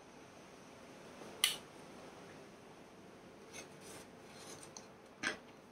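Balsa-wood model parts handled and pressed together: faint rubbing and scraping as a stringer is worked into the tail section, with a sharp click about a second and a half in and another near the end.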